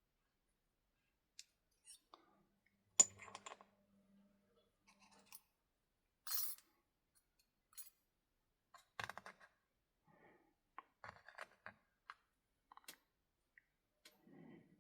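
Small metal clicks, taps and a brief scrape from the parts and tools of an American Lock 1100 padlock being handled as it is put back together, with one sharp click about three seconds in.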